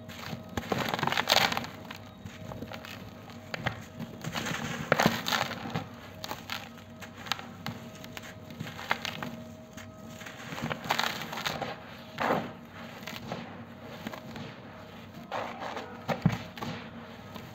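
Hands crushing and crumbling a dry, grainy moulded lump of powder: irregular gritty crunches with a few louder breaks, between them the soft hiss of loose grains sifting and pouring.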